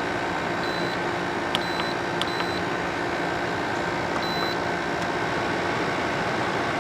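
Frigidaire FAD504DWD 50-pint dehumidifier running steadily, its fan and compressor giving a constant hum, now working normally after its dirty control-panel button contacts were cleaned. A faint high tone comes and goes a few times, and there are two light clicks about two seconds in.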